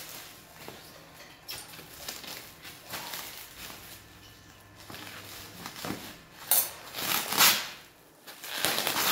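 Clear plastic stretch wrap and packing tape rustling and crinkling as a parcel is cut open and pulled apart by hand. Soft and scattered at first, then loud crinkling in bursts from about six and a half seconds in.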